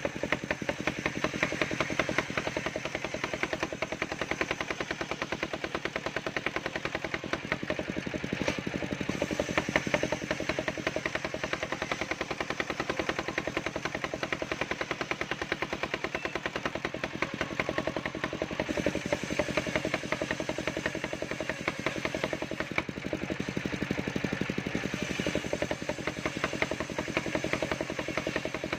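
Engine of a portable circular-saw sawmill running steadily with a rapid, even knocking beat.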